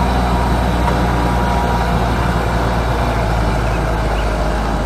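Diesel engine of a Grove RT530E rough-terrain crane running steadily at a low, even pitch, with no change in speed.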